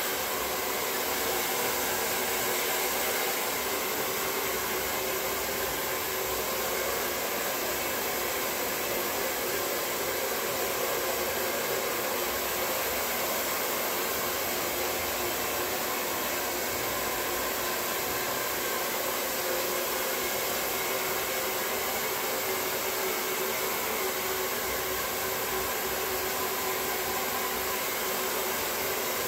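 Handheld hair dryer blowing steadily at an even level while hair is being blow-dried.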